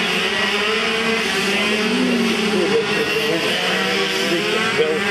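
Racing go-kart engines running on a track, a steady drone whose pitch starts to waver about halfway through as the karts go past.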